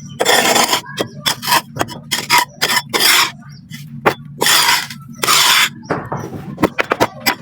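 Black sand being crumbled and crushed: gritty scraping in irregular bursts, several about half a second long, with many short sharp crackles between them.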